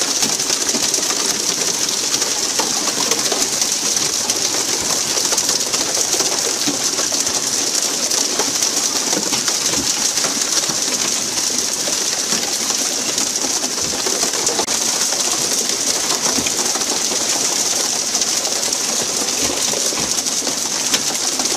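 Steady hiss of water sprayed from the fishing boat's sprinkler pipes onto the sea, with splashing as tuna are hooked on poles and swung aboard.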